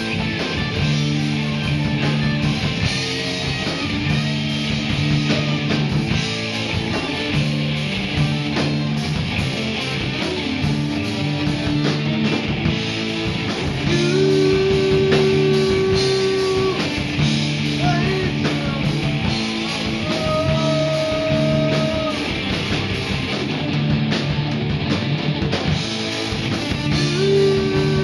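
A rock band playing live: electric guitars, bass guitar and drum kit, with long held notes about halfway through and again near the end.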